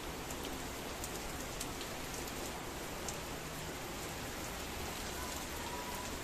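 Steady rain falling on a wet paved street, with scattered individual drops ticking close by.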